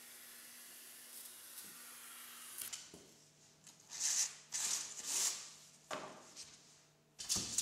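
A faint steady hiss, then from about three seconds in a series of loud, irregular rubbing scrapes: a hot-knife-cut strip of expanded polystyrene foam is pulled free of its groove, foam rubbing against foam.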